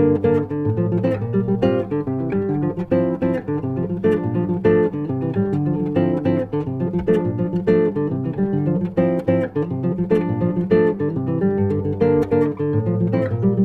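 Acoustic guitar playing an instrumental introduction, plucking and strumming chords in an MPB jazz style.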